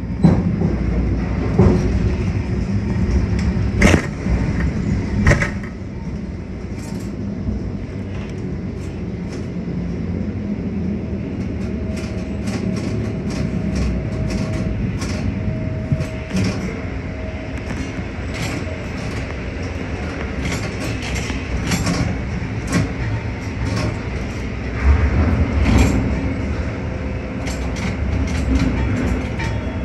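Panamax ship-to-shore container crane running, heard from inside the operator's cab that rides with the trolley. It is a steady low rumble like a rolling rail car, with scattered clicks and clanks and a few louder knocks in the first six seconds.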